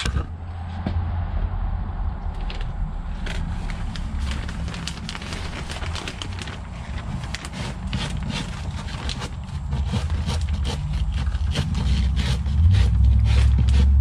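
Brush scraping dust off a CanaVac central vacuum's filter bag, in quick irregular strokes, with the plastic trash bag held around the canister crackling. A low rumble runs underneath and grows louder near the end.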